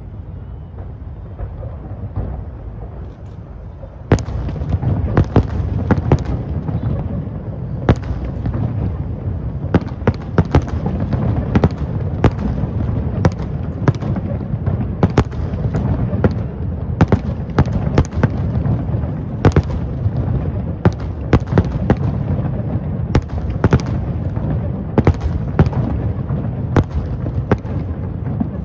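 Fireworks display: a low rumble of bursts at first, then about four seconds in it grows suddenly louder into rapid, repeated sharp bangs and cracks over a continuous low rumble.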